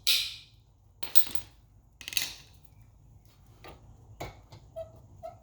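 Metal clinks and scrapes of brake parts and tools being handled: three sharp strikes about a second apart, then lighter clicks.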